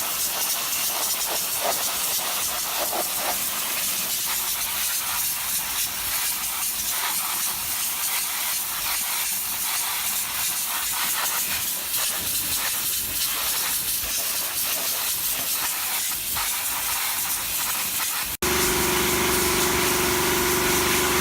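High-pressure water jet from a 350-bar pressure washer fitted with a sandblasting nozzle, spraying with a steady, loud hiss. Near the end the spray sound cuts off suddenly and a steady machine hum is left.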